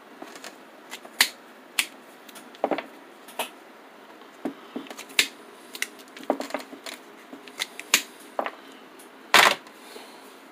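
Hand cutter squeezing through a Kevlar-reinforced Gates lawnmower V-belt: a run of separate clicks and snaps from the tool's jaws and the belt, with a louder knock near the end.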